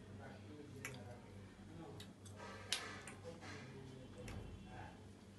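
A person eating and handling food over a cardboard takeaway box: a few faint, scattered clicks and taps, the sharpest a little under three seconds in.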